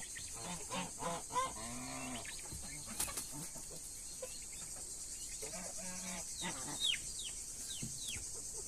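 Chickens clucking and calling in a series of short calls, with quick high falling chirps near the end.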